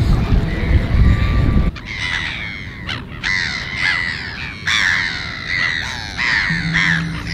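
A low rumble cuts off abruptly under two seconds in. It is followed by a flock of gulls on the water calling over and over, with harsh, falling cries overlapping one another. A low steady note comes in near the end.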